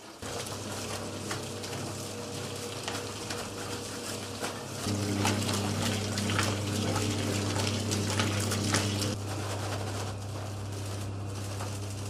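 Electric dough kneading machine running: a steady motor hum under the churning, crackling noise of dough worked in the turning bowl. The hum gets louder and fuller about five seconds in and eases back about nine seconds in.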